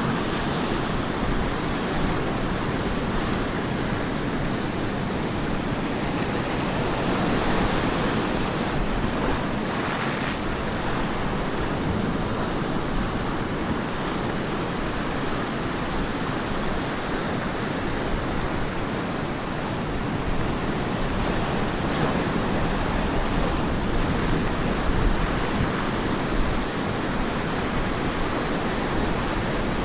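Ocean surf breaking and washing on a beach: a steady rushing roar that swells and eases gently, with some wind on the microphone.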